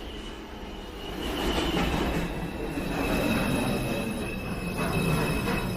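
New York City subway train moving through the station, its steel wheels squealing on the rails over a rumbling run. Several steady high squeal tones are held throughout, and the rumble grows louder about a second in.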